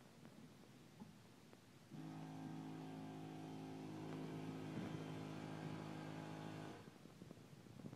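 A faint, steady machine hum at one fixed pitch starts abruptly about two seconds in and cuts off about five seconds later.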